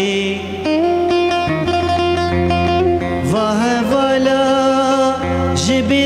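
Kurdish folk song music: a sustained melody with sliding, ornamented turns over a steady low drone.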